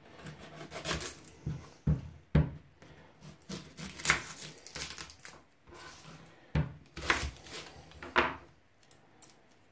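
A kitchen knife trimming and cutting an onion on a wooden chopping board: irregular sharp knocks of the blade against the board, with rustling of the papery onion skin as it is peeled between them.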